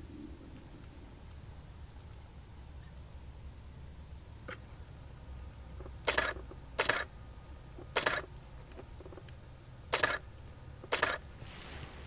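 A camera shutter firing in five short rapid bursts, about a second apart, in the second half. A small bird's short high call repeats in the background over a low steady outdoor rumble.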